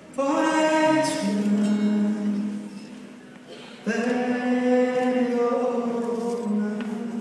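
Live acoustic song: a voice holds long sung notes in two phrases, the second starting about four seconds in, over acoustic guitars.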